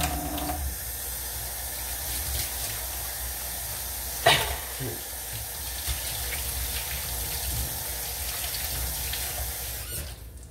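Kitchen tap running steadily into a sink, with a sharp knock about four seconds in; the water is shut off near the end.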